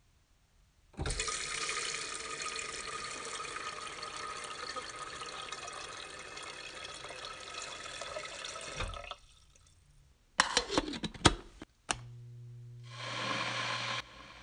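Kitchen faucet running into a stainless steel kettle, a steady rush of water for about eight seconds that stops abruptly. After a short pause come several sharp clanks and clicks, then a brief low hum and a steady hiss near the end.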